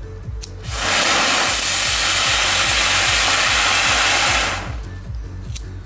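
A 'Dicker Brummer' ground-spinner firework (Comet, category F1) burning with a steady hiss of sparks. The hiss starts about a second in and dies away after about four seconds.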